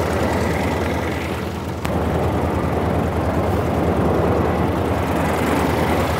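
Used Volkswagen petrol engine of a homebuilt light aircraft running steadily, turning its propeller, with a short click about two seconds in.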